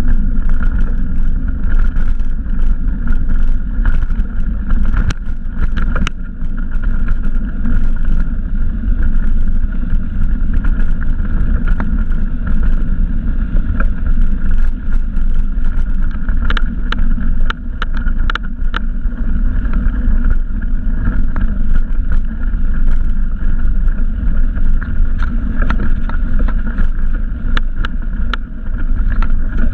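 A mountain bike riding a dirt trail, heard through a GoPro Hero camera: a loud, steady rumble of wind and tyres with frequent sharp clicks and knocks as the bike rattles over the rough ground.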